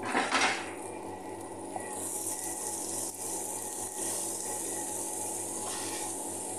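Rice filling and chopped herbs sizzling in a frying pan while being stirred with a wooden spatula. A brief loud rush at the start, then a steady high sizzle.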